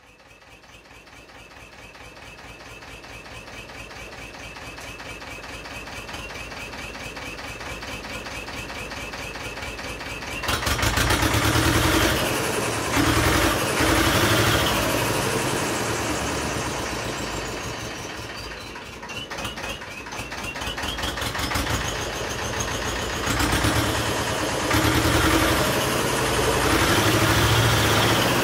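A motor vehicle engine running, growing steadily louder for about ten seconds. It then turns much louder and deeper, with the revs rising and falling.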